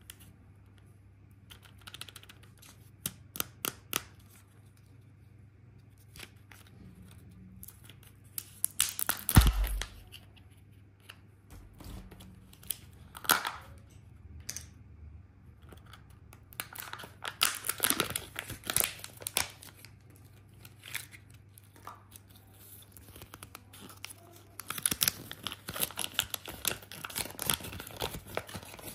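Kinder Joy egg being opened by hand: its plastic wrapping and foil seal crinkling, peeling and tearing in irregular bursts, with one loud crack about nine seconds in. Near the end a toy packet is torn open with dense crinkling.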